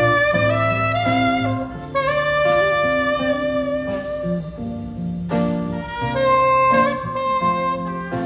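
Live smooth jazz: a saxophone plays a melody of held and gliding notes over acoustic guitar accompaniment.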